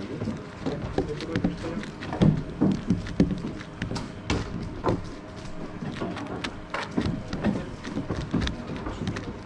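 3x3 speedcube being turned one-handed: rapid, irregular clacking of the layers, with sharper knocks as the cube is turned against the table.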